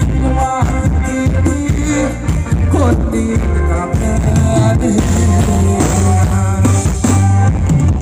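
Loud live band music for a Thai ramwong dance, with a steady drum beat and heavy bass under the melody.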